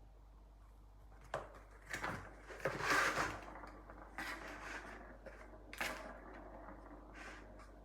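A cat toy being batted and knocked around: irregular clicks, knocks and short rattling scrapes, the loudest a half-second rattle about three seconds in.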